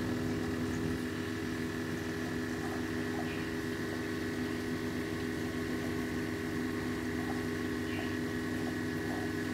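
Aquarium pumps and tank equipment running with a steady hum of several held tones, with a few faint soft ticks.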